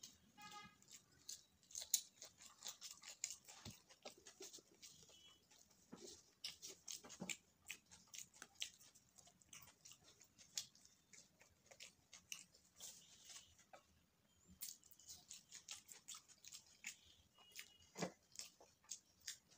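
Close mouth sounds of a person eating chole bhature with her hands: wet chewing and lip smacking, many short irregular clicks, with a brief pitched tone just after the start.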